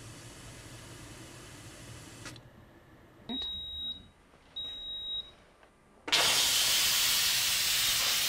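Nutricook electric pressure cooker beeping twice as its cooking time runs out. About six seconds in, steam starts rushing out of the pressure-release valve in a loud, steady hiss: a quick release of the pressure.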